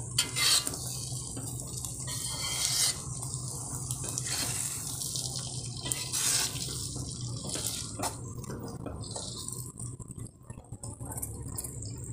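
Beaten eggs with onion and garlic sizzling in hot oil in an aluminium wok, with a few louder scrapes of a spatula against the pan.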